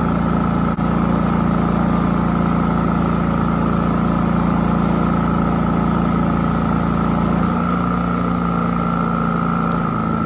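Champion 4650 inverter generator running steadily under the load of a 1300-watt heat gun, with a steady high whine over the engine note. About seven and a half seconds in, the engine note drops slightly.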